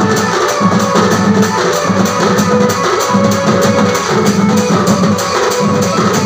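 Sambalpuri band music: a melody line over a fast, even beat of drums and metal percussion strikes, about four a second.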